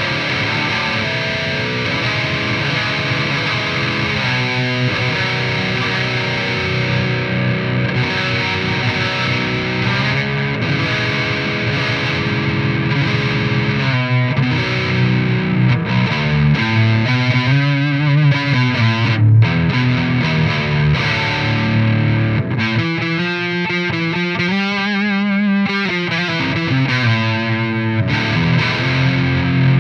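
Distorted electric guitar played through an EVH 5150III 15-watt LBX amp head and a Mesa Boogie 1x12 cabinet with a Celestion Vintage 30 speaker. In the second half, held notes waver in pitch.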